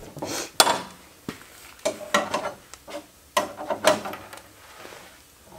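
Metal parts being handled: a chrome paddle latch fitted into a riveted sheet-metal compartment door, giving a handful of sharp clicks and clinks, most of them in the first four seconds.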